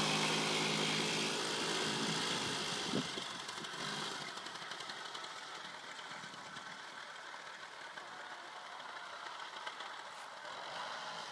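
Small go-kart engine running as the kart drives away, its sound fading steadily into the distance. A brief click about three seconds in.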